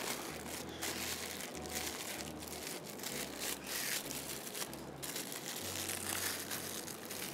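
Plastic piping bag full of chocolate ganache crinkling and rustling irregularly as it is gripped, squeezed and twisted in gloved hands.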